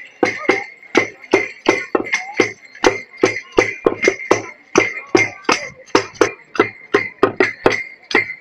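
Parade percussion beating a steady rhythm of sharp strikes, about three a second, with a steady ringing tone above it.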